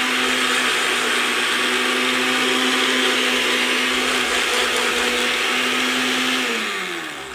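Countertop blender running at a steady pitch, grinding dry maisena biscuits into crumbs to break up the last pieces. Near the end it is switched off and the motor winds down, its pitch falling.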